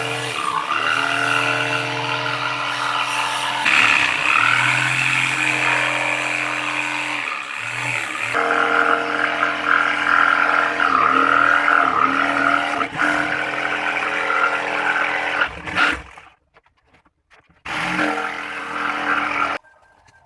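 Electric woodworking power tool's motor running at a steady whine, its pitch dipping briefly and recovering several times as it bites into the wood. It cuts off abruptly in several places.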